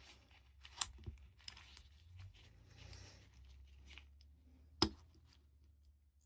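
Faint clicks and scrapes of a Kimber Ultra Carry II's recoil spring and guide rod being worked into the slide by gloved hands. There is a sharp metallic click just under a second in and a louder one about five seconds in as the parts seat.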